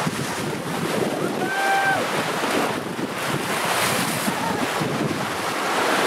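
Water rushing and splashing along the bows of a sailing catamaran under way, with wind buffeting the microphone. A brief pitched voice-like call comes about a second and a half in.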